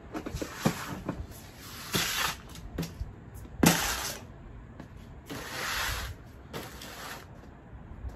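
Boxes and stored items being handled and set down: scraping, rustling cardboard and several knocks, the loudest a sharp knock about three and a half seconds in, with a longer rushing scrape near the middle.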